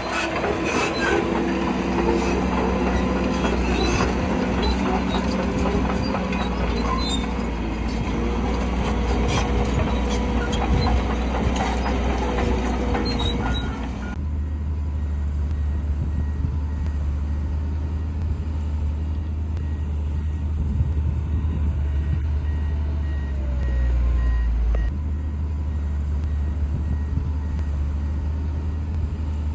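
Heavy diesel earthmoving machinery, a bulldozer and dump trucks, working. For about the first half an engine runs with many metallic clanks and knocks, like steel crawler tracks and a blade working. About halfway through the sound changes abruptly to a steadier, deep engine drone.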